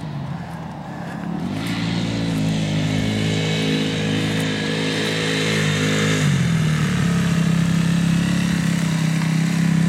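Honda CRF250X dirt bike's water-cooled single-cylinder four-stroke engine running as the bike rides toward the microphone, growing louder. Its pitch rises about two seconds in, holds, then drops around six seconds and settles to a steady lower note.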